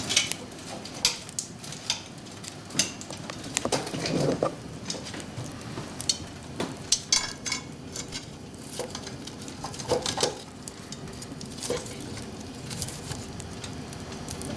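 Firewood burning in a wood stove, crackling with irregular sharp pops over a low steady hiss.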